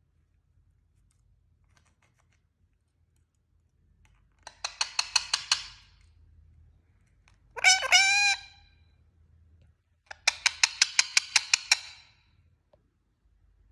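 Indian ringneck parrot calling: a quick run of about ten repeated notes, then one longer call that bends in pitch, then another run of quick repeated notes.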